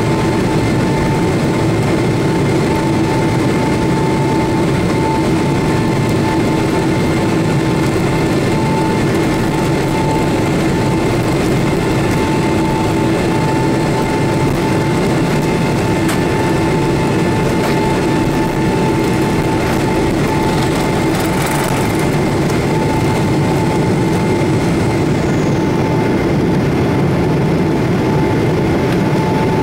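Boeing 777-300ER's GE90 turbofan engines at takeoff thrust, heard from inside the cabin: a loud, steady rush of engine and airflow noise with a steady whine held throughout. This covers the takeoff roll, rotation and initial climb.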